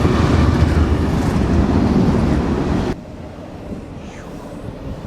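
Train passing close by: a loud, steady rumble that cuts off abruptly about three seconds in, leaving a much quieter background.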